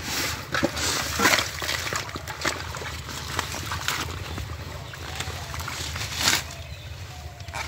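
Muddy water sloshing and splashing in irregular bursts, loudest about a second in and again near the end, as a catfish is let go into a bucket of water and hands dig through wet water hyacinth stems and mud.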